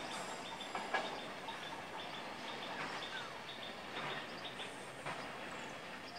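Electric multiple unit train running on the line at a distance: a steady wash of wheel and track noise with faint scattered clicks.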